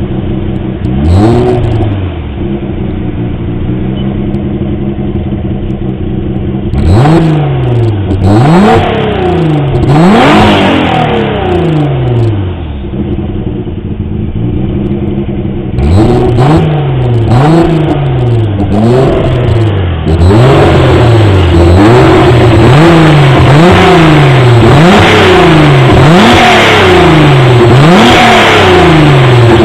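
Nissan 300ZX V6 exhaust, with test pipes in place of the catalytic converters, an unresonated x-pipe and resonators, idling and free-revved. There is a single blip near the start and a few more a little later, then a run of quick repeated blips of the throttle, about one a second, through the second half.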